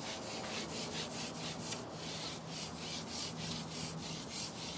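Carbon fishing pole sliding back over a pole roller as it is shipped in: a rubbing swish that swells and fades about four times a second, with a faint low hum that comes and goes.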